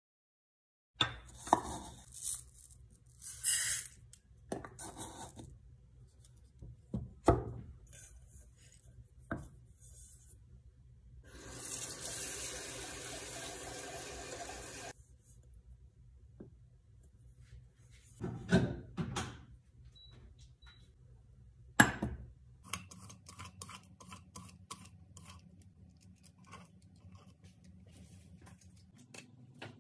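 Kitchen prep sounds: scattered knocks and clinks of utensils and dishes being handled, with a tap running for about four seconds near the middle as food is rinsed.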